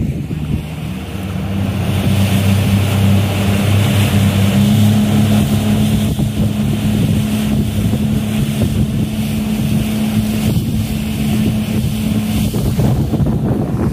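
Twin Yamaha 250 hp four-stroke outboard motors running steadily at speed on a passenger speedboat, growing louder about two seconds in, with water rushing past the hull and wind on the microphone.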